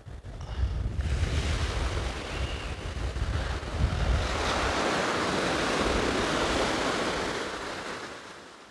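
Surf breaking and washing up the beach, with wind buffeting the microphone. The wash is loudest about halfway through and dies away near the end.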